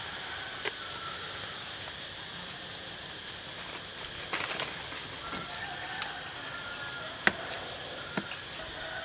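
Outdoor ambience: a steady high insect hum with occasional faint bird chirps, broken by a few short sharp clicks, the loudest about seven seconds in.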